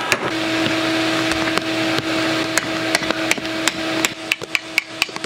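Hand hammer striking red-hot steel on an anvil while forging a spearhead. The blows are spaced at first, then come in a quick run of about four a second near the end, over a steady hiss and low hum.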